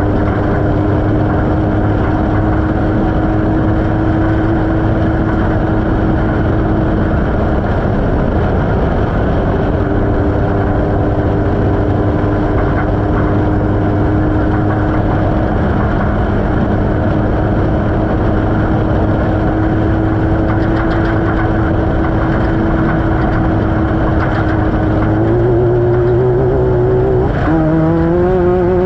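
Off-road race vehicle's engine running at a steady speed, heard on board under a loud wash of rough-terrain noise. About three seconds from the end the engine's pitch steps up, then rises again near the end as it accelerates.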